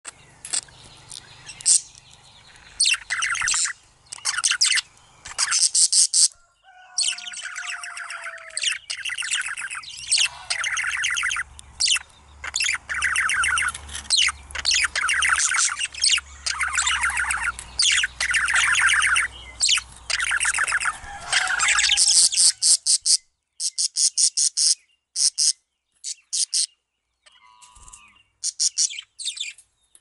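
Male budgerigar warbling and chattering: fast runs of chirps and clicks, in short bursts at first, then a long unbroken warble through the middle, breaking up again into short bursts near the end.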